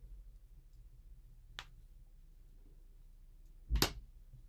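Small scissors snipping the tip of a plastic piping bag: one sharp snip about a second and a half in, then a louder knock with a low thud near the end.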